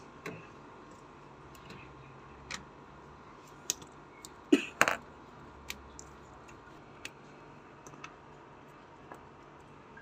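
Scattered sharp clicks and snaps of wire-stripping pliers and wires being handled, with two louder snaps close together about halfway through.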